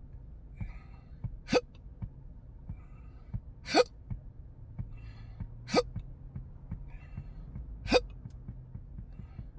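A man's hiccups: four sharp "hic" sounds, evenly spaced about two seconds apart. These are the persistent, intractable hiccups he has lived with for years.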